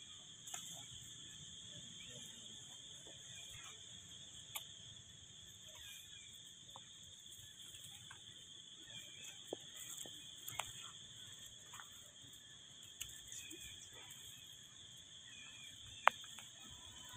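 Steady, even high buzz of an insect chorus, with a few light clicks scattered through it and one sharp click about sixteen seconds in.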